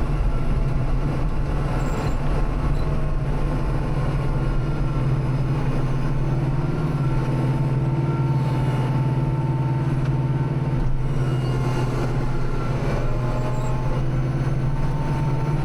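Kubota tractor's diesel engine running steadily under load as the tractor pushes through about a foot of snow, its underside dragging in it.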